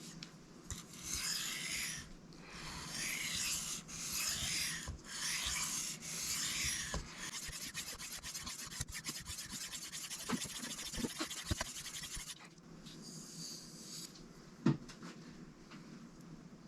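A steel knife edge being drawn across a Sharpal 162N diamond sharpening plate. First come about five long, even strokes, then quick, short scrubbing strokes until about twelve seconds in, then lighter strokes and a single knock near the end. The edge is being worked on its second side until the burr falls off.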